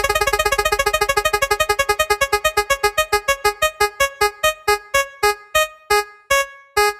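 Synthesized spinning-wheel sound effect: quick electronic plinks that slow steadily, like a prize wheel ticking to a stop, as the colour wheel lands on the next colour.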